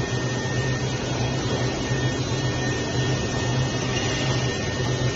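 Steady machine hum with a rush of air noise: a strong low hum, a few faint high whining tones above it, unchanging throughout.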